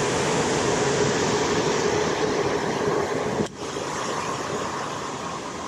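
Steady rush of water pouring over a concrete spillway and churning in the channel below. About three and a half seconds in it dips briefly, then carries on a little quieter.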